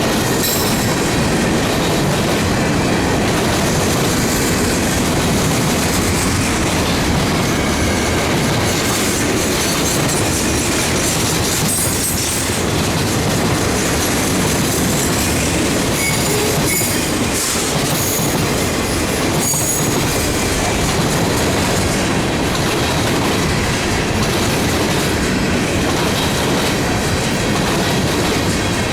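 Freight train cars rolling steadily past, wheels clattering over the rails, with brief high-pitched wheel squeals now and then around the middle.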